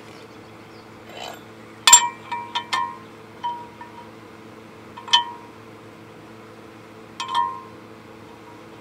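Metal boat propeller clinking against the splined prop shaft of the sterndrive as it is lined up and slid on: sharp metallic clinks, each with a short ringing, in a quick cluster about two seconds in, then one near five seconds and a pair near seven seconds. A steady low hum runs underneath.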